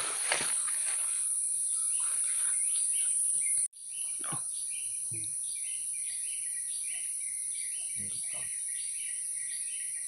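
Steady high-pitched insect drone in tropical forest. It cuts out for an instant a little over a third of the way in. After that a short chirping call repeats about twice a second, with a few faint knocks or rustles.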